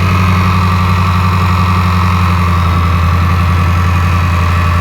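Jaguar XFR's supercharged 5.0-litre V8 idling steadily, with its supercharger disconnected.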